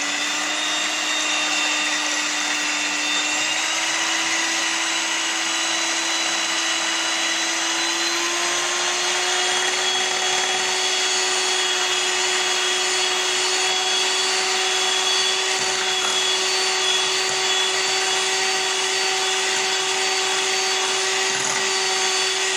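Aceline electric hand mixer running steadily, its beaters whisking eggs in a glass bowl into a light foam. The motor's whine creeps up slightly in pitch over the first several seconds, then holds steady.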